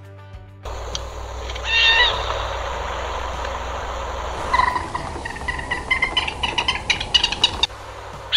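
Otters calling: one high pitched call about two seconds in, then a fast run of short high chirps from about four and a half seconds that cuts off abruptly near the end. Underneath, in the first half, is a steady rush of water from a small rocky waterfall.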